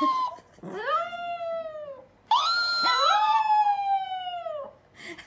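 Chihuahua howling: a string of long, high howls, each rising quickly and then sliding slowly down in pitch, with two howls overlapping about halfway through.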